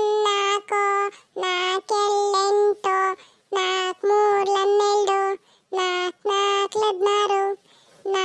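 A cartoon child's high voice reciting the four-times table in a sing-song chant. The phrases are held on nearly one note, with short pauses between them.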